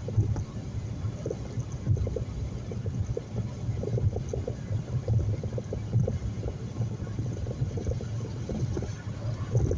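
Road and engine noise inside a moving car's cabin: a steady low rumble with small, irregular bumps throughout.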